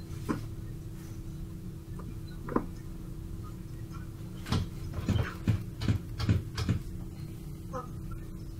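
A steady low electrical hum, broken about halfway through by a quick run of about eight sharp knocks or taps over two seconds, with a couple of single taps before.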